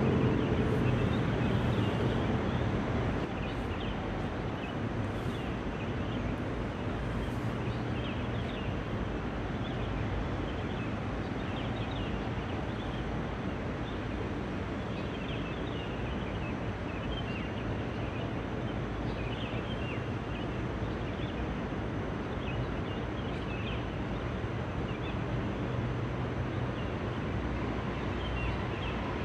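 Steady outdoor city ambience: a broad hum of distant traffic. A louder passing vehicle fades out over the first few seconds, and faint high chirps are scattered throughout.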